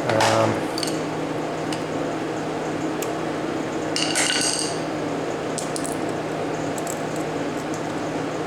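Small metal parts clinking and tapping as the disassembled compressor motor and its brush parts are handled, with a brief ringing clink about four seconds in, over a steady low hum.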